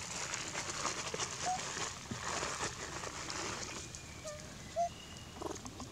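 Long-tailed macaques giving a few short, high chirping calls, one about a second and a half in and two close together near the end, the last the loudest, over a steady hiss.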